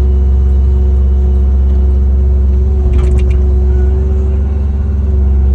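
Diesel engine of a compact John Deere excavating machine running steadily, with a brief clank about three seconds in.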